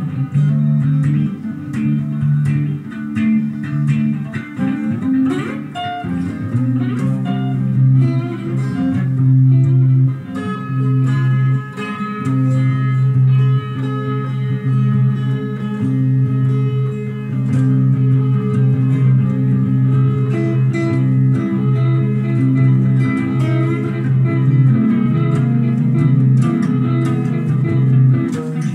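Electric guitar being played, mostly long held low notes with higher notes ringing over them, and a few sliding notes about five seconds in.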